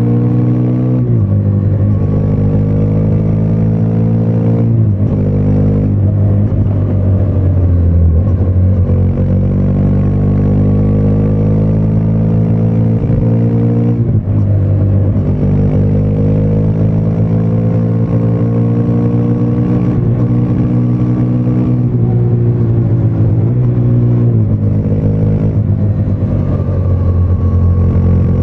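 Triumph Speed 400's single-cylinder engine and exhaust under hard acceleration, heard from the rider's seat. The exhaust note climbs in pitch through each gear and drops sharply at every upshift, several times, with the longest pull running from about fourteen to twenty-two seconds in.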